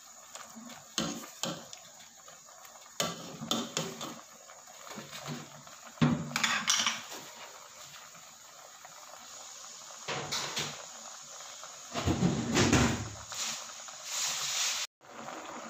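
Soup boiling in an aluminium pot, a steady bubbling hiss, with scattered knocks and clatters of a metal ladle against the pot. The loudest clatters come about six seconds in and again around twelve to thirteen seconds.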